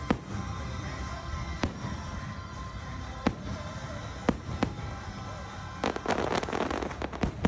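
Fireworks going off over music: a string of single sharp bangs a second or so apart, then a dense stretch of crackling near the end.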